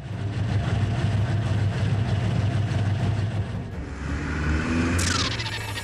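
Car engine sound effect running steadily, with a high falling swish about five seconds in.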